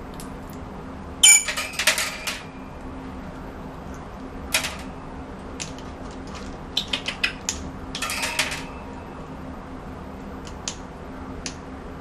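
African grey parrot making sharp clicks and clacks in scattered bursts, the loudest cluster about a second in and more around seven to eight seconds in, over a faint steady hum.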